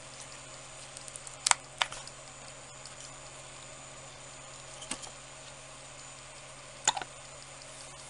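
A few short, sharp clicks or taps of small hard objects over a steady faint hum: two close together about a second and a half in, a softer one near five seconds, and a quick cluster near seven seconds.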